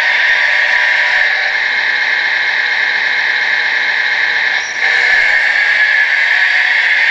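Electric drive motors and gearboxes of a radio-controlled Bruder CAT D5G toy bulldozer running steadily with a high whirr as it tracks over gravel, briefly dropping off about four and a half seconds in.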